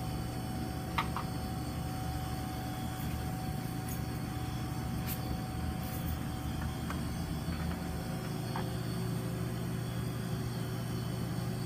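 Medium-temperature refrigeration unit running with a steady hum, with a few faint clicks about a second in and again around four to six seconds.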